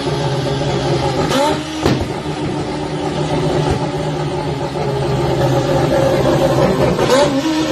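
Car engine running steadily, with a brief rise and fall in pitch twice, about a second and a half in and near the end, and a sharp crack just after the first.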